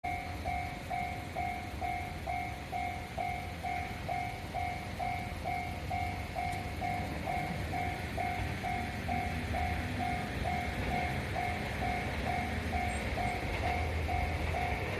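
Japanese railway level-crossing warning bell dinging steadily, about two strikes a second, signalling an approaching train. Under it a low rumble grows slowly louder toward the end as the train draws near.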